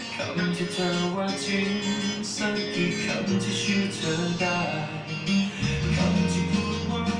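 Guitar music: a guitar played with quick picked notes over held low notes, with a deeper bass note coming in near the end.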